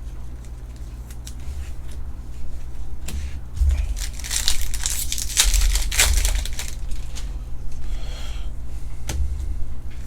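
A Bowman baseball card pack's wrapper being torn open and crinkled for a few seconds, about midway through, with light clicks of cards being handled before and after and a steady low hum underneath.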